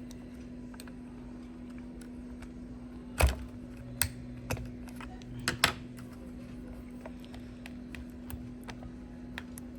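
Small screwdriver and fingers working a stiff plastic airbag connector clip on a steering wheel, giving a handful of sharp plastic clicks and knocks, the loudest about three seconds in and several more between four and six seconds. A steady low hum runs underneath.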